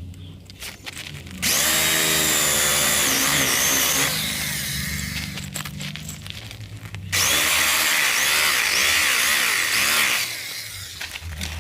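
Electric drill boring a hole through a thick wooden block, run in two bursts of about three seconds each, its whine dipping in pitch as the bit bites into the wood.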